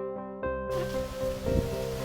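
Soft keyboard background music with steady held notes. About half a second in, an even rushing outdoor noise of strong wind comes in under it.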